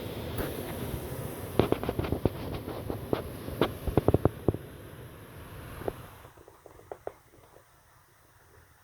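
A rapid, irregular string of sharp cracks or pops over a rushing wind-and-surf noise, most of them between about one and a half and four and a half seconds in, with a few fainter ones later as the background drops away.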